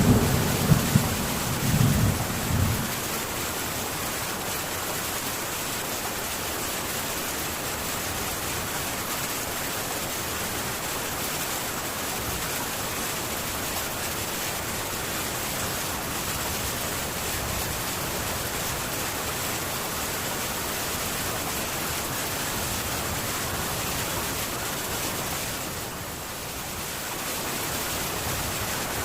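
Steady heavy rain falling on a metal tin roof, with the last of a low thunder rumble dying away in the first three seconds. The rain dips briefly near the end.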